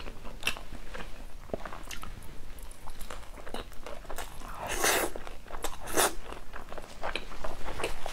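Close-miked eating sounds: crunchy bites and chewing of a flaky fried pancake, with two louder crunches about five and six seconds in.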